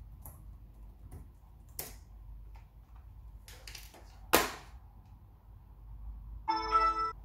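Light clicks and taps of a wireless computer mouse being handled and moved on a table, with one sharper knock a little past halfway. Near the end comes a short ringing tone made of several steady pitches.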